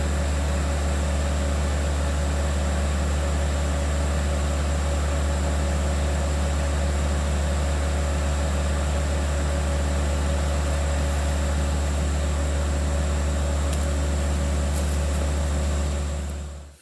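Skid steer's diesel engine running at a steady speed, a constant loud drone that stops abruptly near the end.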